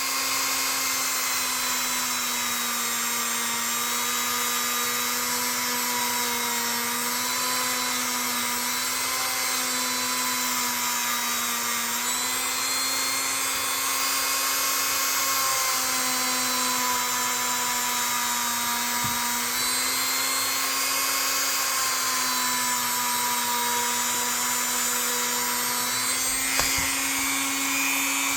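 Small high-speed electric rotary tool running steadily, its motor pitch wavering slightly as it is pressed against the work, cleaning rust off a camp knife blade.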